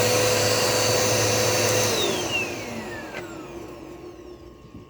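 Dirt Devil Multi-Surface upright vacuum cleaner running steadily, then switched off about two seconds in, its motor whine falling in pitch as it spins down and fades.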